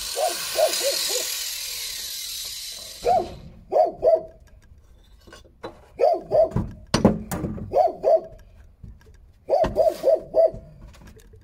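A dog barking in short volleys of two to five barks, with a few sharp knocks around the middle. A steady hiss fades away over the first few seconds.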